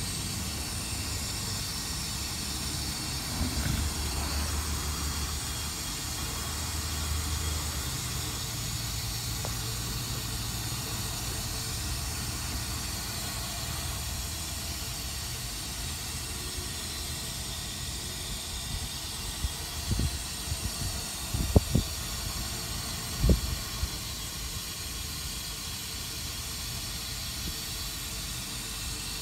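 Steady rushing hiss of muddy water flooding through a LEGO sandbox town. A few sharp knocks about twenty seconds in are the loudest sounds.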